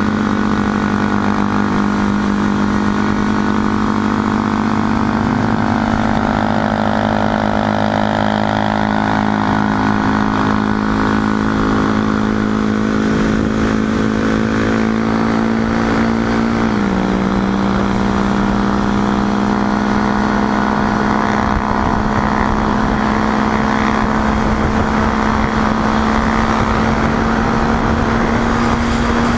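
Sport motorcycle engine running steadily at cruising speed, heard from on the bike with wind rushing past. The engine note steps down once about two-thirds of the way through and rises slightly again near the end.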